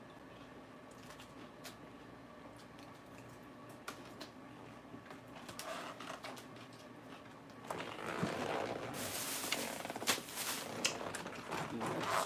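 Scattered faint clicks, then from about eight seconds in, crisp lettuce being crunched and chewed with crackly, wet mouth sounds.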